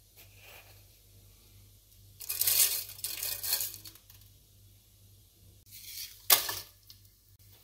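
Fenugreek seeds poured into a stainless steel pot, rattling and scattering on the metal for about two seconds. A second, shorter rattle follows with a sharp clink about six seconds in.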